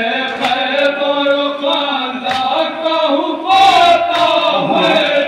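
Men's group chanting a noha, a Shia lament for Imam Husain, in long held lines sung together, with a few sharp slaps of matam, hands striking chests, loudest a little past halfway.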